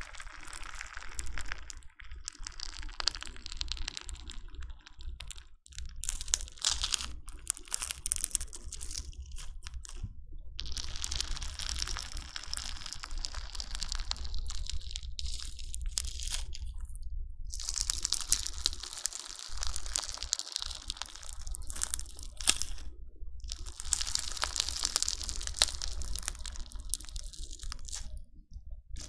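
Crunchy bingsu slime, slime packed with small plastic beads, being squeezed and pressed with a crackling, popping crunch. It comes in runs of several seconds broken by brief pauses.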